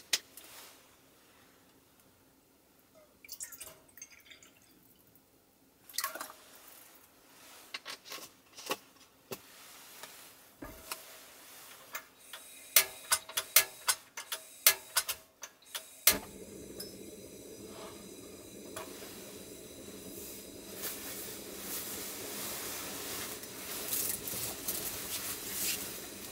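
Clicks and knocks of a pot and plastic water bottle being handled, then a quick run of sharp clicks as a cassette gas stove is lit. About 16 seconds in, its burner catches and the flame hisses steadily.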